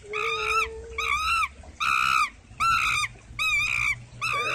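A pelican giving a series of high, squeaky calls, about six of them evenly spaced, each rising and then falling in pitch.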